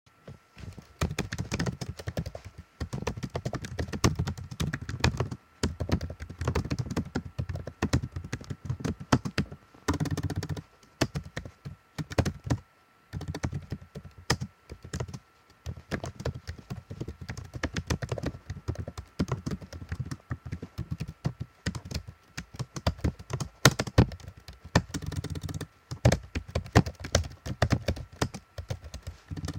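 Fast typing on a computer keyboard: dense runs of key clicks broken by a few short pauses.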